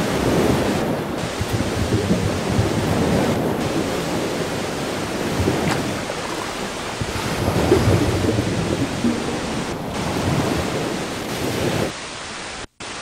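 Loud rushing noise that swells and falls, heaviest in the low range. A little before the end it switches to a quieter, even hiss that cuts out for an instant.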